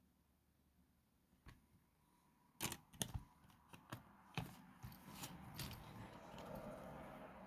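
A CD and its packaging being handled: a single click, then a run of sharp clicks and taps about two and a half seconds in, turning into soft rustling.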